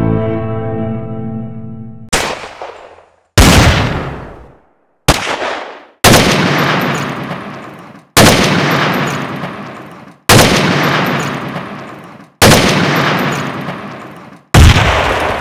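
A string of separate gunshot sound effects, about eight of them, each a sudden sharp crack with a long echoing tail, coming roughly every two seconds. They follow a musical tone that fades out over the first two seconds.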